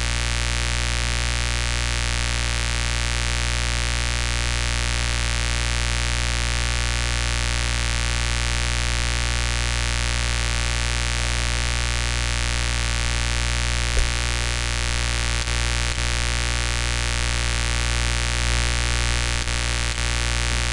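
Steady electrical mains hum with hiss on the recording's microphone line, unchanging throughout, with a single short click about two-thirds of the way through.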